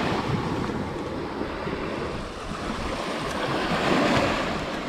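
Waves washing on a sandy beach, with wind buffeting the microphone; the wash swells about four seconds in.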